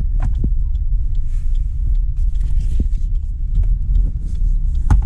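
Steady low vehicle rumble with light clicks and knocks scattered through it.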